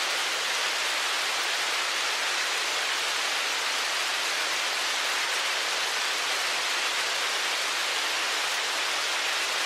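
Hailstorm: hail and rain falling densely on a surface, a steady, unbroken patter.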